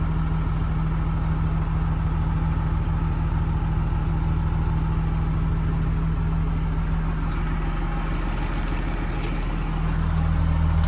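A 2009 Blue Bird school bus's CAT diesel engine idling steadily, heard from the driver's seat. There are a few faint clicks about eight to nine seconds in. Near the end the low hum grows a little louder.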